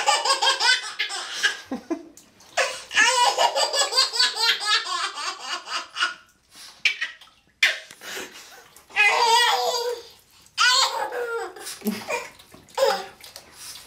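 A baby laughing hysterically in repeated bouts of rapid belly laughter, breaking off briefly and starting again.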